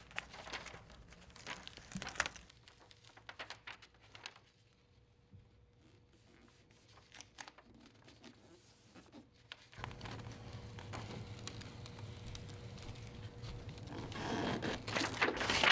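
Blueskin butyl self-adhered flashing and its release liner crinkling and tearing as they are peeled and handled, with sporadic crackles that grow denser and louder near the end.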